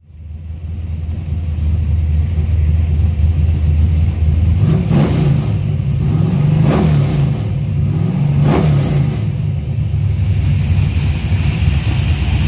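1970 Plymouth Duster drag car's engine idling, then revved briefly three times, each rev rising and dropping back to idle. The sound fades in at the start.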